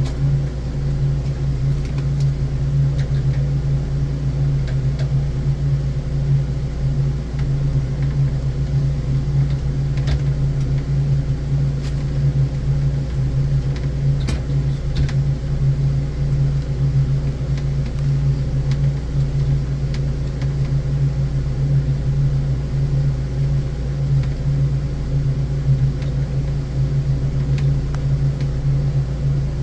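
Steady low mechanical hum of running machinery, unchanging throughout, with a few faint ticks around the middle.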